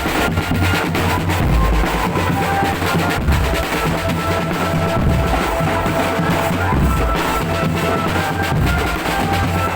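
A marching drum band playing loudly: bass drums and snare drums beating steadily under a melody of held notes.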